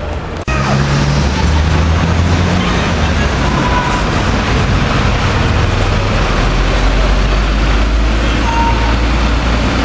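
City street traffic: car and bus engines running and passing, over a steady low rumble.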